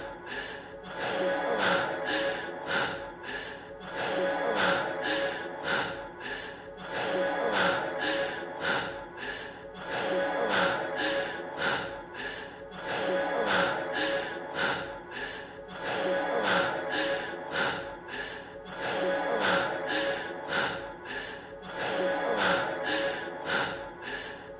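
A man's heavy breathing and gasps, looped so the same short stretch repeats over and over, with the song's music held underneath.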